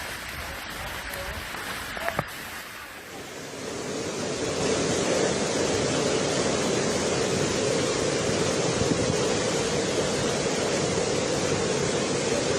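Swollen, flooding river rushing, a steady wash of water noise that gets louder about four seconds in and then holds. A single short knock comes about two seconds in.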